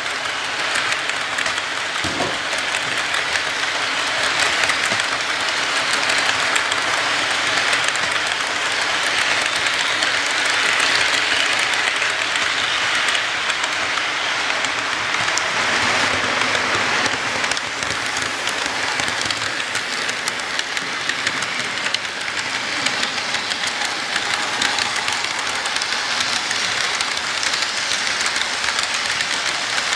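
Model train freight cars rolling past close by on the track, a steady rolling clatter with fine rapid ticks from the wheels over the rails.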